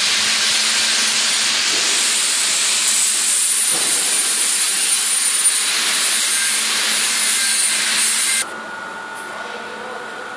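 Loud steady hiss with a faint high whistle that cuts off abruptly about eight seconds in, leaving a quieter steady hum and thin whine.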